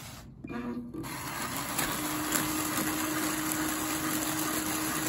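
TJ400 air cushion machine starting up about a second in and running steadily as it inflates and heat-seals pillow film: a steady blower noise, joined about two seconds in by a steady hum, with faint regular ticks.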